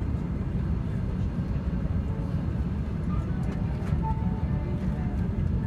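Steady low rumble of airflow and engines inside the cabin of an Airbus A380 on final approach with flaps extended.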